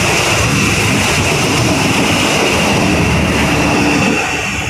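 Passenger train passing close by at speed: a loud, steady rush of wheels on rail and carriages going by, easing a little near the end as the last carriage passes.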